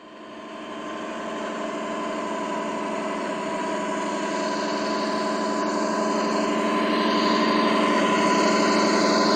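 Simulated truck engine sound from the RC Ural 4320's Das Mikro TBS Mini sound module, played through its small onboard speakers. It runs steadily and grows louder as the truck drives closer.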